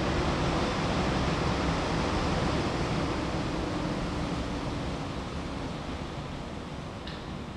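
Train running past with a broad rushing rumble that slowly fades as it draws away.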